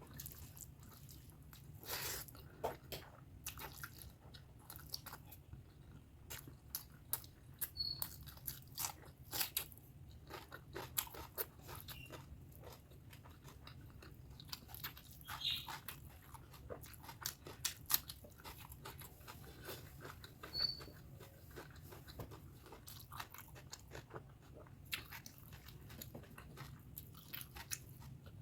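Close-miked chewing and biting of pork fat curry with rice: irregular wet mouth clicks and smacks, several a second, with no speech.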